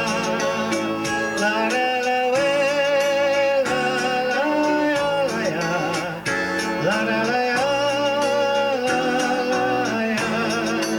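Music: a song with a long-held, wavering melody line over guitar accompaniment.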